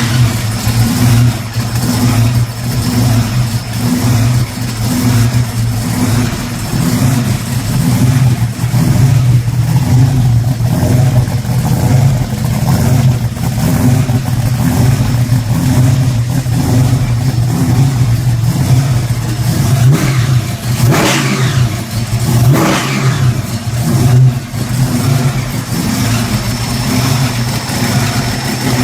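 A freshly installed Hemi engine running loudly just after start-up, a steady lumpy idle with two quick blips of the throttle about two-thirds of the way through.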